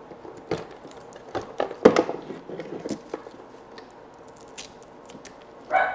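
Power cords and a plastic power-supply brick being unplugged and pulled out from behind a wooden desk: scattered clicks, knocks and cable rattles, the loudest about two seconds in.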